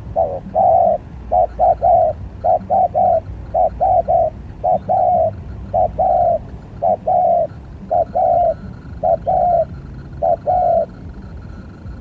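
Spotted dove cooing: about ten phrases of two or three low notes, roughly one phrase a second, stopping about a second before the end.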